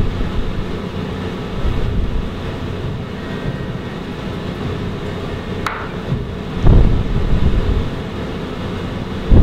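Steady low room hum, like ventilation, with a few low thumps and rustles of movement on a clip-on microphone and one sharp click a little past halfway; the loudest thump comes at the very end.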